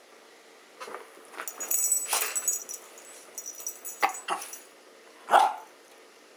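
Metal collar tags jingling as dogs move about, with a few short sharp dog sounds and one loud bark about five seconds in.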